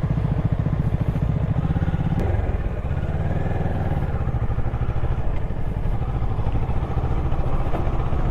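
Motorcycle engine running steadily at low speed, with an even, rapid low beat.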